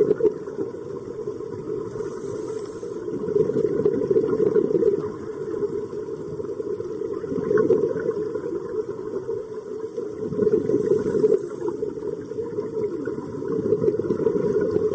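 Muffled low underwater rumble picked up through a camera housing, swelling and easing every few seconds.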